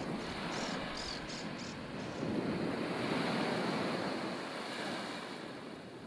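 Sea waves washing onto a beach, with wind: a steady rushing noise that swells about two seconds in and eases off near the end. A few short, high chirps in the first two seconds.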